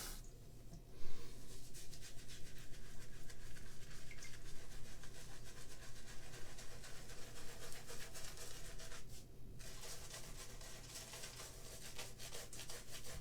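Shaving brush rubbing lather from an Arco shave stick soap, in quick repeated brushing strokes with a short pause about nine seconds in.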